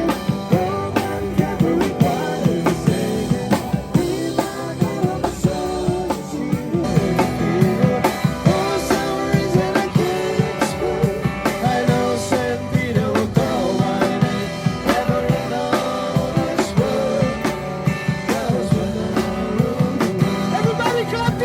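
A band playing a song: a singer over guitar and a drum kit with a steady beat.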